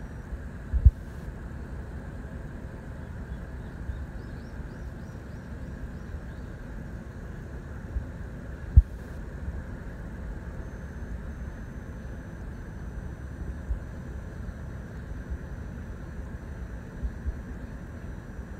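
Steady low background rumble with two sharp low thumps, one about a second in and a louder one a little before the middle.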